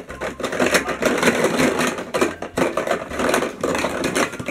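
Plastic Mega Bloks rattling and clattering as a toddler rummages through them in the storage bin of a ride-on toy: a dense, continuous run of small knocks.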